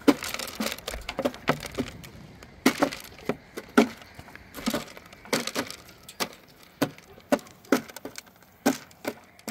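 A run of sharp, irregular cracking and crunching sounds, about two or three a second.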